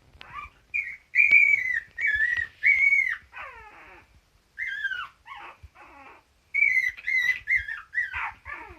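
Mame shiba dog whining: a string of high-pitched, whistle-like cries, many falling in pitch, in two bouts with a short pause between them.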